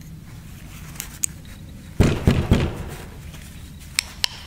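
A few dull thumps and rustling about halfway through, then near the end quick light taps, about four a second, from the plastic handle of a pick on a CAV diesel injection pump, to free its sticky roller mechanism.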